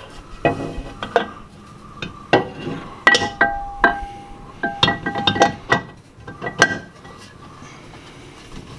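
Irregular metallic clinks and knocks as a steel socket extension and an aluminium rear differential housing are worked into position under the car, several strikes ringing briefly; the knocking stops about two seconds before the end.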